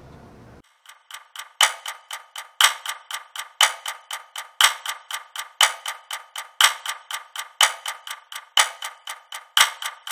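Rhythmic clicking percussion starting about half a second in, with a loud accented click about once a second and four or five lighter clicks between.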